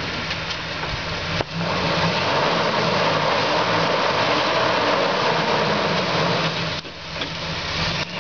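Off-road rock crawler's engine running. About a second and a half in it comes up louder under throttle as the truck works over a rock ledge, holds for about five seconds, then drops back.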